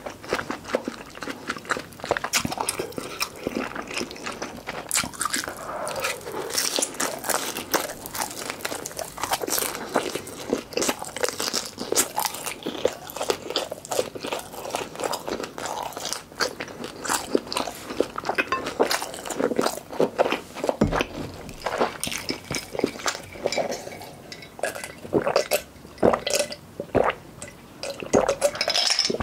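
Close-miked eating sounds: a person chewing mouthfuls of mala tang, a dense run of small wet mouth clicks and smacks.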